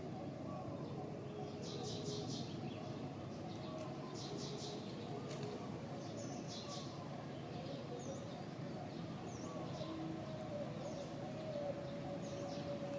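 Small birds chirping: short rapid high trills every couple of seconds, then single short falling chirps, over a steady background hum.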